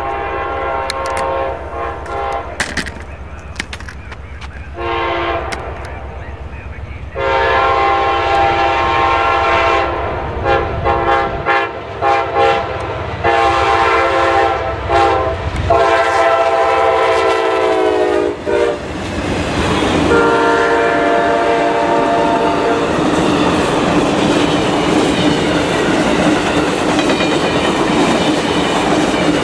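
Air horn of an Amtrak GE P42DC locomotive blowing a series of loud blasts, with a quick run of short blasts in the middle, as the train approaches a grade crossing. The horn's pitch drops as the locomotive passes. The passenger cars then rumble by with steady wheel clatter over the rail joints.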